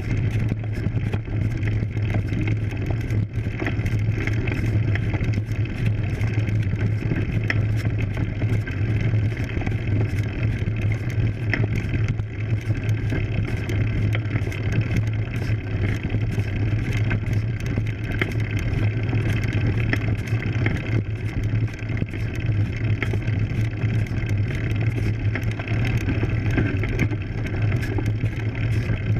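Road bike rolling slowly up a dirt road, its tyres on loose grit and wind on the frame-mounted camera's microphone: a steady low rumble with many small ticks.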